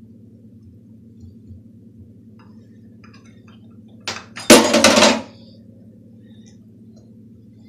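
Utensils clattering against a ceramic plate of pizza sauce: a short knock about four seconds in, then a loud clatter lasting under a second. A faint steady low hum runs underneath.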